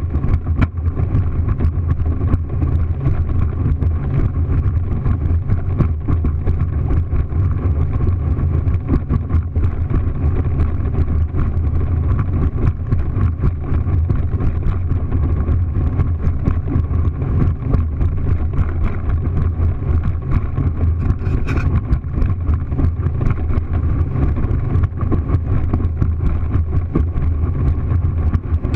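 Motorboat running at speed: a steady low engine drone mixed with wind and water noise.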